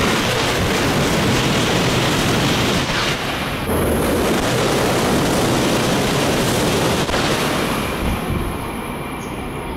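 JR East E956 ALFA-X Shinkansen test train passing through a station at high speed: a loud, steady rushing noise that fades near the end as the train moves away.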